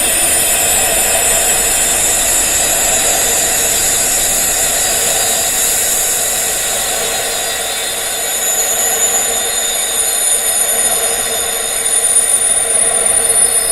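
Wind chimes, tuned to high tinnitus-like pitches, ringing in many overlapping drawn-out tones over a steady hiss-like noise.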